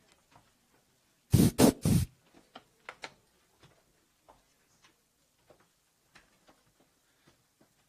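Three loud thumps in quick succession on the podium microphone about a second in, as it is bumped or brushed. Faint scattered clicks follow.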